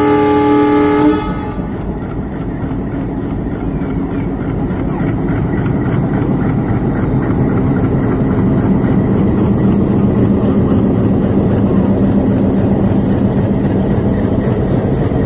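Diesel locomotive sounds a multi-tone horn for about a second, then its engine works hard, pulling a passenger train out of the station. The engine rumble grows steadily louder as the locomotive draws close and passes.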